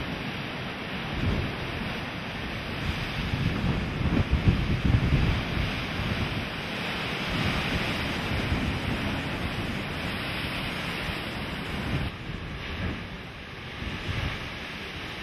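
Strong wind and heavy surf: a rough sea breaking against a rocky shore, with gusts of wind across the microphone swelling and easing irregularly.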